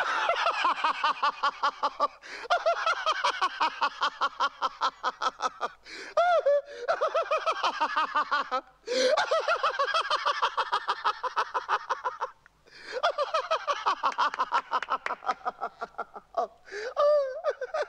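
A man laughing hard and long: runs of rapid 'ha-ha' pulses, several a second. He breaks off about four times for short breaths, then goes on.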